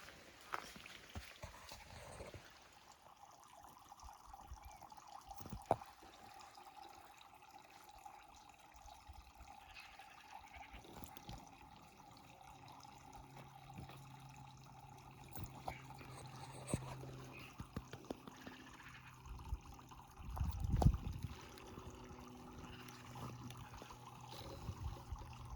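Faint trickling water, with scattered small clicks and a short low thump about twenty seconds in.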